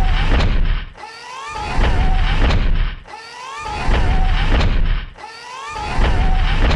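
Star Wars AT-TE walker walking-loop sound effect: a heavy low thud of each stride about every two seconds, with rising mechanical whines and a wavering hum between strides, repeating evenly.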